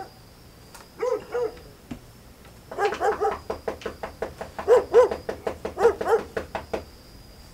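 A dog barking at night: two barks about a second in, then a quick run of barks from about three to six seconds in, loudest near the five-second mark.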